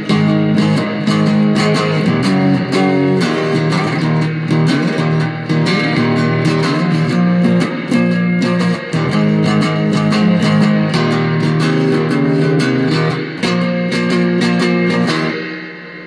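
Three-string cigar box guitar tuned E-B-E, its frets placed at the harmonics for just intonation, playing chords with quick, steadily repeated picked strokes. About a second before the end the playing stops and the last chord rings out and fades.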